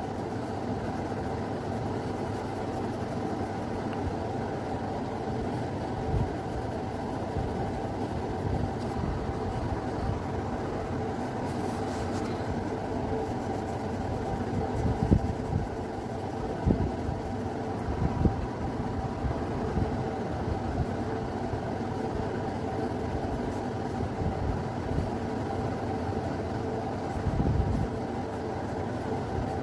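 Steady mechanical hum with a few faint steady tones, broken by a handful of short, dull low knocks.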